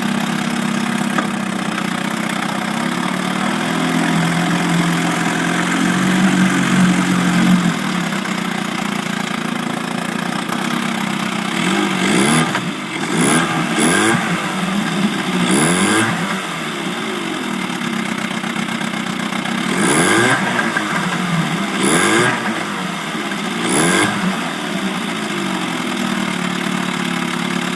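Viking 6 hp small gasoline engine running after a carburettor rebuild. It idles steadily, then takes about seven short throttle blips in the second half, each rev rising and falling back to idle.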